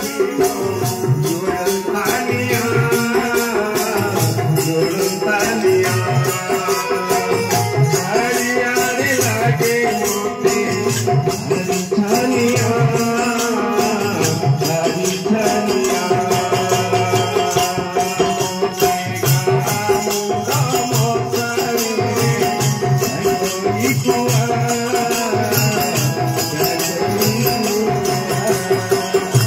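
Devotional bhajan music: an electronic keyboard plays the melody over a steady rhythm from a two-headed barrel drum, with quick, regular clashing of small metal percussion throughout.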